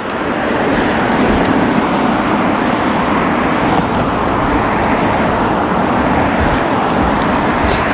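Steady rushing of wind over the microphone and road noise while cycling.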